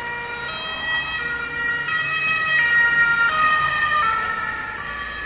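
Ambulance siren passing by, its tones switching about every half second, growing louder to about three seconds in and then fading. Its pitch drops as it passes and moves away: the Doppler effect.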